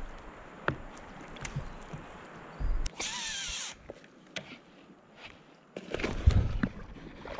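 A fishing reel's spool briefly whirs, falling in pitch, as a popper lure is cast, among scattered small clicks. Louder knocks and rustling follow near the end.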